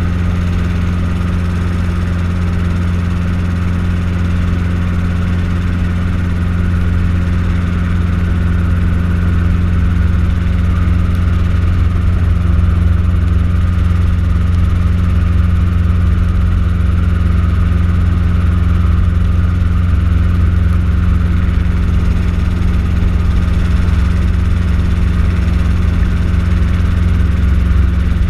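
Light helicopter in flight, heard from inside the cabin: a steady drone of engine and rotors with a strong deep hum.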